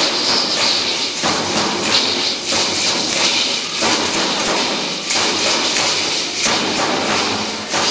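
Matachines dance: many hand rattles shaking together and feet stomping on a hard floor, with heavier beats repeating in a steady rhythm.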